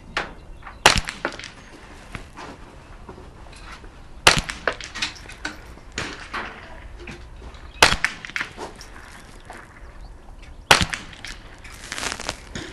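Ruger 10/22 rimfire rifle with a muzzle brake fired slowly: four sharp shots about three to three and a half seconds apart, with fainter clicks and knocks between them.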